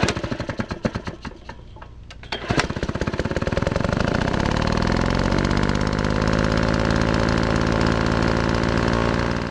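Briggs and Stratton lawn mower engine firing in separate, uneven beats for the first couple of seconds. At about two and a half seconds it catches, picks up speed and then runs steadily.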